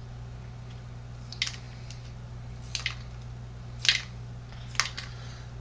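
Four short, sharp plastic clicks about a second apart as plastic power piston wads are pushed back into shotgun shell hulls, over a steady low hum.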